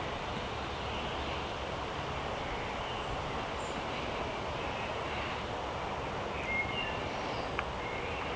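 Steady outdoor background noise, with a few faint, short bird chirps, the clearest pair about two-thirds of the way in.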